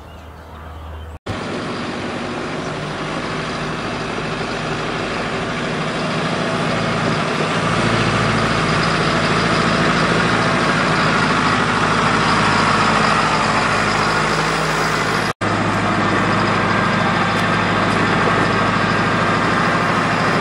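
Massey Ferguson tractor's diesel engine running as the tractor drives across a gravel lot, growing louder over the first several seconds as it approaches, then steady.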